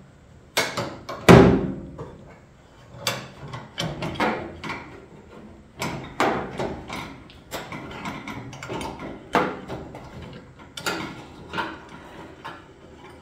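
Sheet-metal tail panel and quarter panel clicking and knocking as the seam is levered into alignment with a plastic trim tool, with one heavier metal thunk about a second and a half in and a dozen or so lighter clicks scattered after it.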